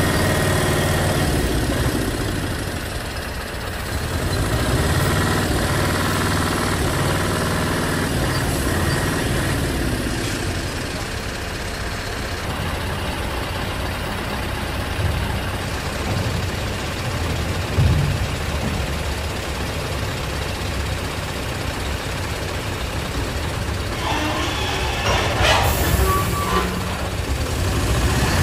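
Heavy truck's diesel engine running steadily at low revs as it slowly hauls a low-loader trailer carrying a train car. There is a short, louder burst of noise near the end.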